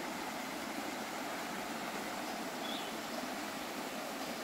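Creek water running steadily over rocks and small ledges, a constant rushing flow.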